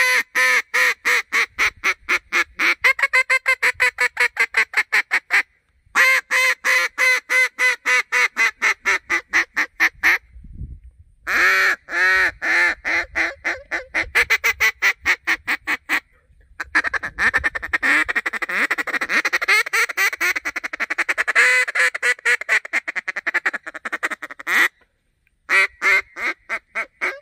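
Land-N-Gear Sassy Susie mid-range mallard duck call blown in strings of quacks, about four a second, with short breaks between the strings. In the later part comes one longer run of quicker, softer notes.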